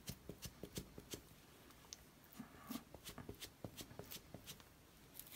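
Faint rustling and rubbing of a cloth being worked around a foam ink-blending tool to wipe it clean, a few short soft scuffs a second.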